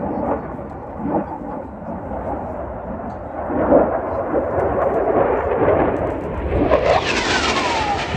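Saab JAS 39 Gripen fighter's single jet engine rumbling in a low display pass. About seven seconds in, as the jet comes past, it turns louder and brighter, with a whine that falls steadily in pitch as it goes by.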